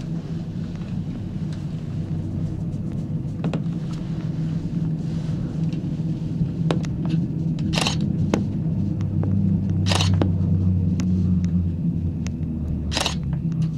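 Panoramic Mont Blanc gondola cabin running along its rope, heard from inside: a steady low rumbling hum that swells for a few seconds past the middle. Several sharp knocks or creaks from the cabin come through, the loudest near the end.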